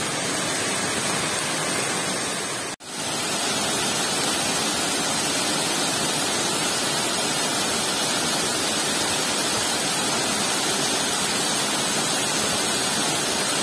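Small waterfall rushing steadily over rocks into a stream, with a brief break in the sound about three seconds in.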